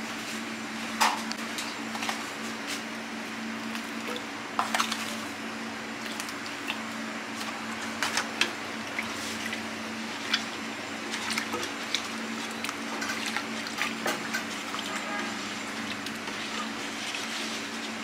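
Food being stirred and squished by hand in a thin liquid marinade in a stainless steel tray: wet sloshing with scattered sharp clinks and knocks against the metal, over a steady low hum.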